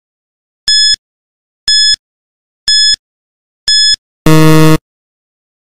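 Quiz countdown timer sound effect: four short high beeps about a second apart, then a louder, lower buzzer about half a second long near the end, marking time up.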